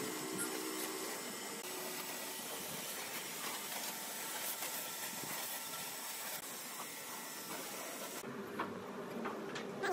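Pressure washer spraying water onto a wooden cabinet in a steady hiss. About eight seconds in the hiss cuts off, leaving a quieter hum with a few sharp clicks.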